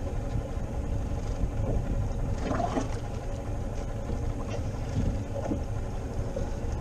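Steady wind and sea noise around an open inflatable boat drifting at sea, a low rumble of wind buffeting the microphone.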